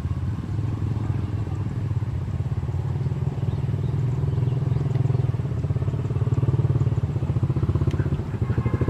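A small engine running steadily with a fast, even pulse, getting a little louder about halfway through.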